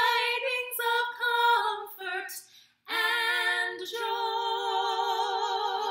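Two women singing a cappella in harmony: a few short sung notes, then a long held final note with vibrato from about three seconds in.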